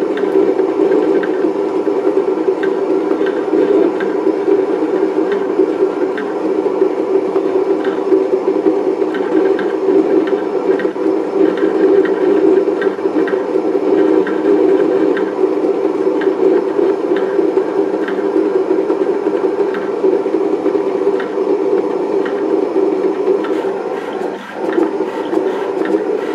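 Monu-cut 24-inch vinyl and stencil cutting plotter running steadily as it cuts. Its motors and moving carriage make a loud, even mechanical drone, with a brief dip about a second and a half before the end.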